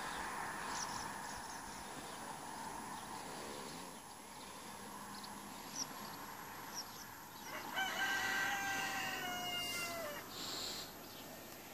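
A rooster crows once, one long call of about two seconds starting about two-thirds of the way in and dropping in pitch at its end. A few short high bird chirps come earlier.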